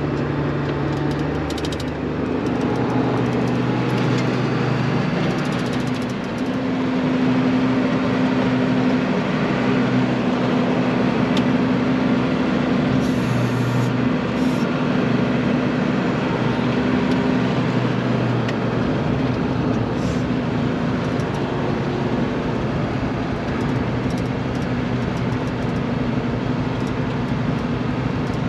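Valmet tractor's diesel engine running steadily at constant revs.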